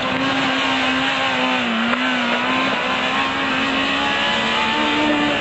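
Formula SAE race car's engine running at steady revs as the car corners around cones on the skid pad, its pitch dipping slightly about two seconds in and rising a little near the end.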